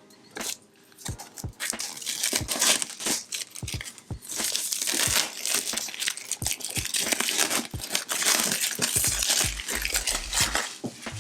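Packaging being handled and opened, crinkling and tearing: scattered crackles at first, then continuous loud crinkling from about four seconds in until shortly before the end.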